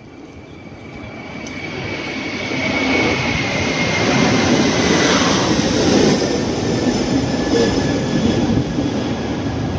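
Road traffic noise: a rushing vehicle rumble that swells over the first three seconds and then holds steady, with a faint high whine drifting slightly lower.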